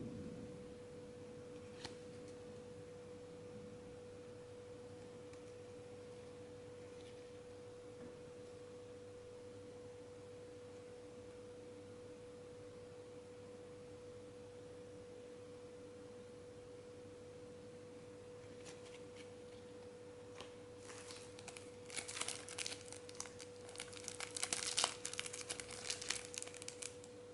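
Packaging crinkling and tearing in dense crackly bursts over the last several seconds, as a wrapper is pulled open. A steady faint tone runs underneath throughout.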